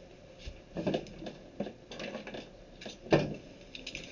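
Hand tools and small parts being handled on a workbench: scattered clicks and knocks, the loudest about three seconds in.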